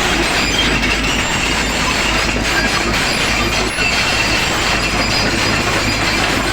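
SANY SY55C mini excavator working, its diesel engine running steadily under a constant metallic clatter with thin high-pitched squeals.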